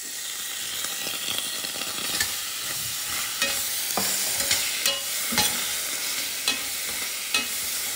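Oyster sauce sizzling as it hits a hot stainless steel pan of fried chicken pieces and onion, the sizzle rising right at the start. A metal spatula stirring the pan clinks and scrapes against the steel several times.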